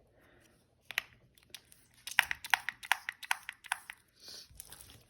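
Sticky slime with bingsu beads being kneaded and stretched by hand, giving crackling clicks and pops that come thick and fast from about two to four seconds in. It is too sticky and is being worked to firm it up.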